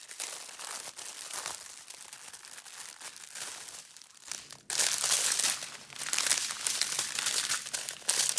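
Small plastic bags of diamond painting drills and kit packaging being handled and crinkled. The rustling is light at first and gets much louder about halfway through.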